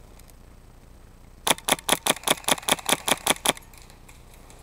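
Airsoft rifle firing a rapid string of about a dozen shots, roughly six a second, for about two seconds.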